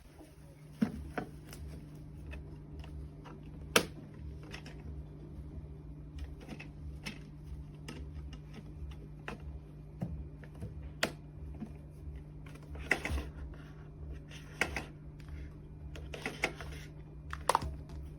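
Irregular clicks and light knocks over a steady low hum, like hard parts being handled.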